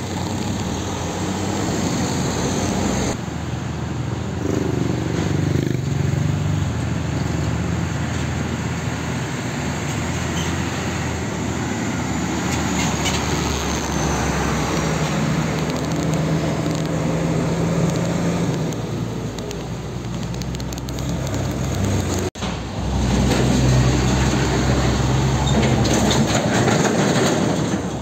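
Large diesel trucks passing close one after another, a red tanker truck, a green Hino Ranger and an LPG tanker semi, their engines running with tyre and road noise. The sound changes abruptly about three seconds in, and drops out for a moment about six seconds before the end, then comes back louder.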